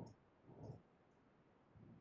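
Near silence: room tone, with one faint short sound a little over half a second in.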